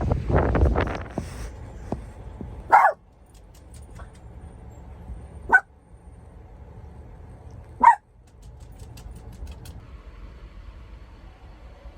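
A dog barks three times, single barks spaced about two and a half seconds apart.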